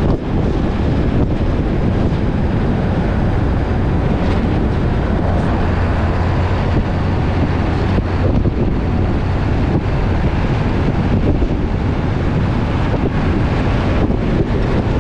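Truck driving at highway speed: a steady drone of engine and road noise, with wind buffeting the microphone.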